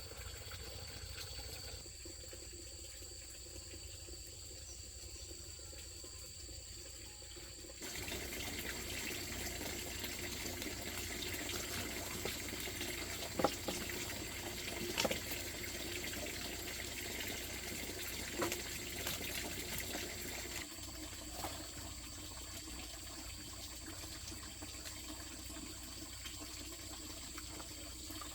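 Water running or pouring, growing louder about eight seconds in and easing off again around twenty seconds later, with a few light knocks in between.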